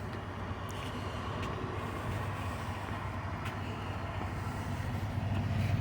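Semi-truck diesel engine running steadily with a low hum, growing slightly louder near the end.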